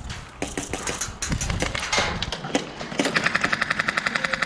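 Airsoft guns firing: scattered shots and short bursts, then about three seconds in a loud, rapid full-auto burst lasting under two seconds.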